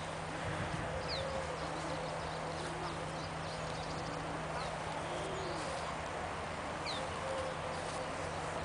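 Outdoor park ambience: a steady background hiss with a low hum, and a bird's short high chirps three times.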